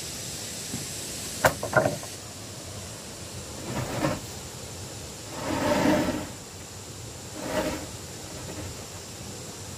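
Wooden planks knocking together twice, then a long wooden board scraping as it is slid across a wooden frame, three drawn-out rubs.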